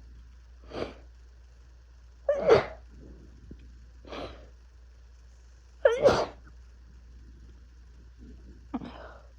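A run of sneezes from a head cold: two loud, sharp sneezes about three and a half seconds apart, each after a quick breath in, then a smaller sneeze near the end.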